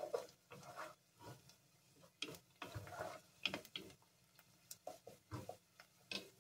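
Wooden spoon stirring diced vegetables in oil in a pot, with irregular scrapes and knocks of the spoon against the pot's sides.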